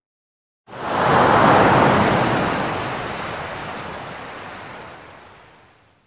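A single ocean wave breaking on a beach: after a brief silence it crashes in suddenly about a second in, then washes and fades out over about five seconds.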